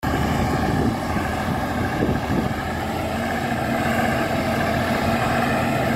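Diesel engine of a T-150K wheeled tractor running steadily under load as it pulls a cultivator through a field.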